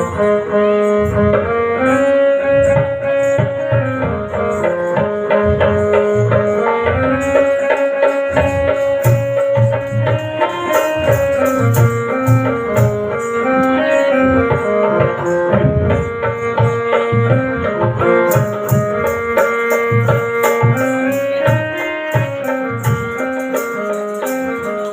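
Instrumental music: a melody of long held notes stepping up and down over a steady hand-drum rhythm, with a high rattling shake joining about three quarters of the way through.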